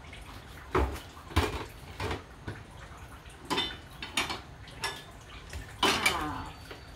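Kitchen pots, dishes and utensils knocking and clinking, with about eight separate knocks a half-second to a second apart. The loudest clatter comes near the end.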